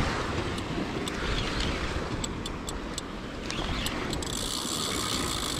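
Daiwa Saltiga 8000 spinning reel cranked under load against a hooked fish, its mechanism ticking irregularly, with a steadier high whir joining about four seconds in. Wind on the microphone and lapping sea underneath.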